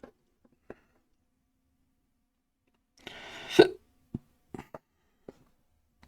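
Short, loud throat sound from the builder, like a hiccup, about three seconds in, followed by a few sharp plastic clicks of Lego Technic parts being fitted together.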